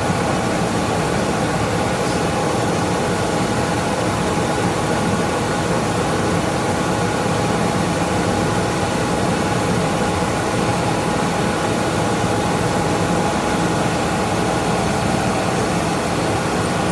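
Metal lathe running at a steady speed with a constant motor and gear whine while a turning tool cuts 3/8-inch bar stock down to a bolt shank.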